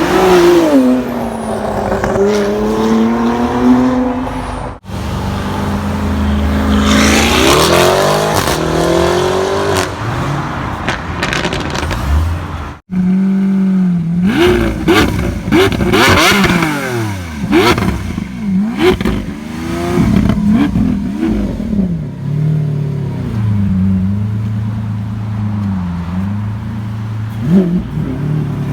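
Supercar engines revving and accelerating, their pitch climbing and falling again and again, in separate clips joined by abrupt cuts about five and thirteen seconds in.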